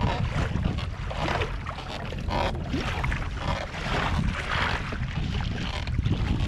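Water washing and slapping along the hull of a Hobie Outback pedal kayak in choppy water, in surges about once a second, over a steady low rumble of wind on the microphone.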